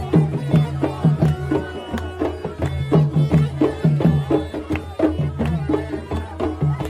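Background music in a Middle Eastern folk style, with a steady hand-drum beat over a low drone and plucked or bowed melodic notes.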